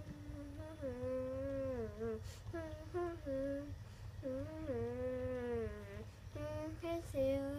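A boy singing a wordless melody, unaccompanied, in five phrases of long held notes that bend up and down, with short breaks between them.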